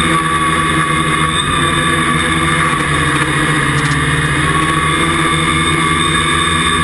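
Electric motors and propellers of a small camera drone, heard through its onboard camera: a loud, steady whine made of several tones, its pitch wavering a little about halfway through as the throttle shifts.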